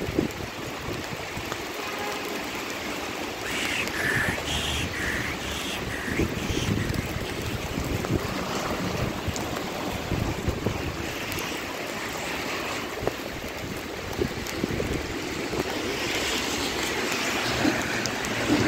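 Heavy rain pouring on a wet street: a steady rushing hiss. A few short higher-pitched sounds come through about four to seven seconds in.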